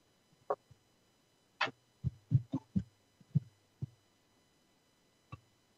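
Irregular short thumps and knocks from a handheld camera being carried by a walking operator, a mix of handling bumps and footfalls. There are about a dozen between quiet gaps, bunched together about two to four seconds in.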